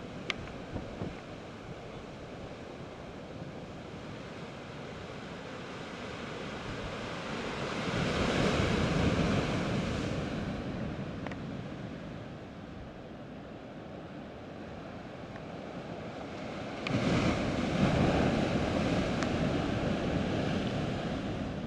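Ocean surf breaking against a rocky shore below, a steady wash with two bigger waves crashing: one builds about eight seconds in, and another hits suddenly about seventeen seconds in.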